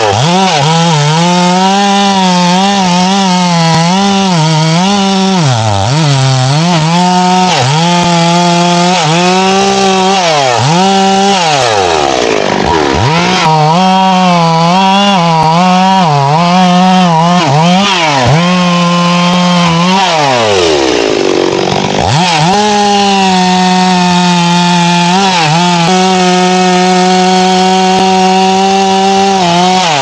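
A two-stroke chainsaw cutting through a thick, dry teak log at full throttle. Its pitch sags and recovers again and again as the chain bogs in the heavy cut. Twice it drops to idle and revs back up.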